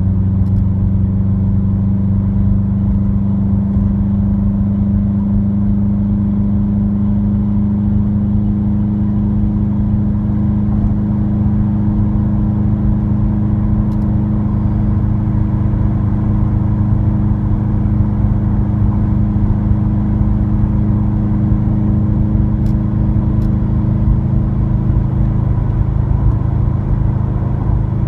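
Subaru WRX's turbocharged flat-four breathing through an Invidia N1 dual cat-back exhaust, heard inside the cabin at a steady cruise: a constant low exhaust drone that holds one pitch.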